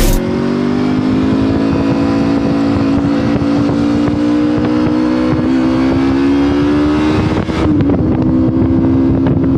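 Motorcycle engine pulling under throttle, its note slowly rising as the bike gathers speed, then dipping and dropping in pitch about three quarters of the way through, as at an upshift, before running on steadily, with wind rush over it.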